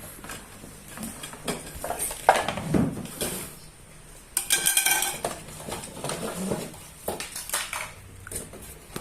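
Plastic toy pieces and packaging being handled during unboxing: irregular clattering, knocks and rustles, busiest about halfway through.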